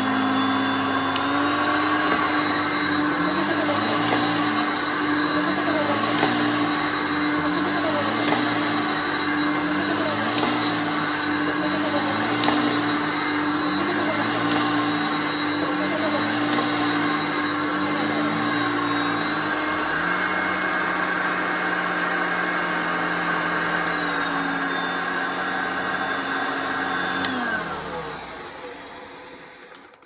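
1978 Hoover Concept One upright vacuum cleaner running on carpet, its sound swelling and dipping about once a second as it is pushed back and forth, then steadier. Near the end the motor is switched off and winds down.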